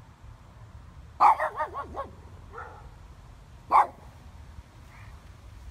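Shih Tzu barking: a quick string of about five short barks a little over a second in, one softer bark, then a single loud bark a second or so later.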